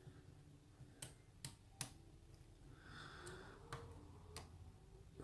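Faint, scattered clicks of a hook pick working the pin stack inside a pin-tumbler rim cylinder, about six light ticks spread over a few seconds.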